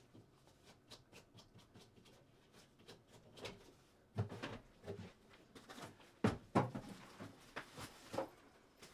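Scattered knocks, thumps and rustling of someone moving about and handling things, growing louder and more frequent from about four seconds in.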